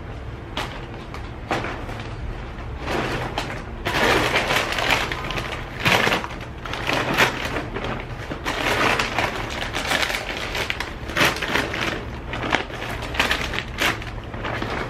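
Plastic snack bags crinkling and rustling in irregular bursts as they are handled and set down on a wooden shelf, getting busier a few seconds in.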